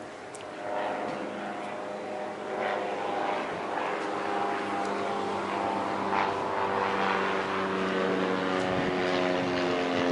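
Light propeller plane flying low overhead, its engine drone growing louder with the pitch slowly dropping as it passes over.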